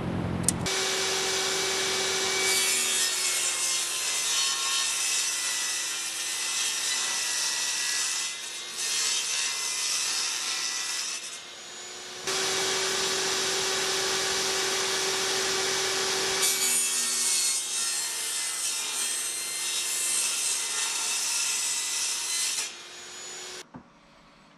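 Portable jobsite table saw ripping a thin plywood sheet in two long cuts, with a short break about halfway. The motor's whine drops a little in pitch as the blade bites into the wood, under a steady rasp of cutting. The saw sound stops suddenly near the end.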